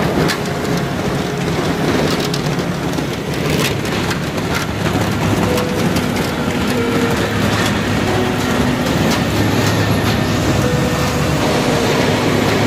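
Chain-driven carrot conveyor loader running, a steady mechanical rattle with a low hum, with many small knocks of carrots tumbling along the belt into a refrigerated trailer.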